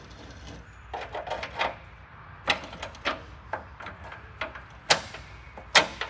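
Irregular sharp metal clicks and clanks, a quick cluster about a second in and the loudest hit near the end. They come from the adjustable legs and locking pins of a toy hauler's ramp entry steps being handled and re-pinned.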